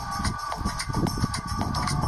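Background music: held tones over a busy run of light beats.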